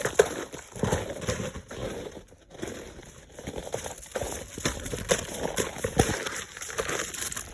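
A dog working at a cardboard advent calendar: irregular knocks, clicks and rustles.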